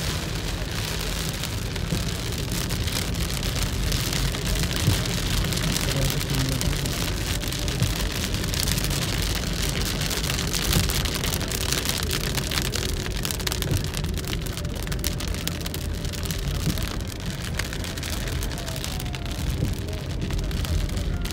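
Heavy rain hitting a moving car's windshield and body, heard from inside the cabin as a steady dense hiss of many drop hits over a low rumble of tyres and engine.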